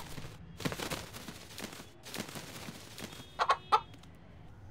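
A rooster gives two short clucks in quick succession about three and a half seconds in, over faint room sound.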